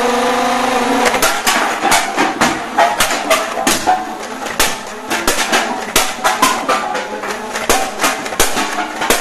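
Percussive music-like sound: a held pitched tone in the first second, then a long run of sharp, irregular clicks and knocks.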